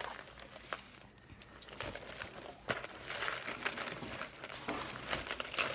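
Plastic snack packaging crinkling and rustling as it is handled, with a few small sharp clicks.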